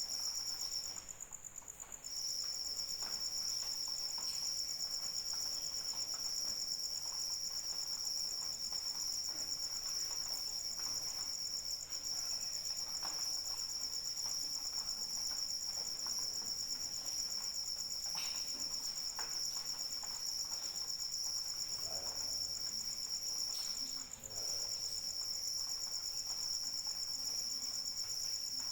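A chorus of crickets trilling steadily in high, continuous tones, with the lowest trill dropping out for about a second near the start and briefly again near the end. A faint patter of light rain lies beneath.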